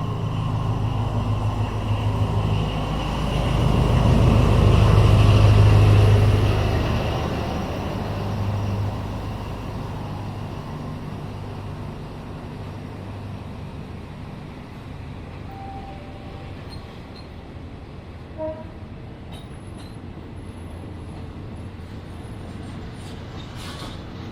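Diesel train engine drone with steady low tones, growing louder to a peak about five seconds in and then fading away as the train moves off, leaving quieter railway-station background noise.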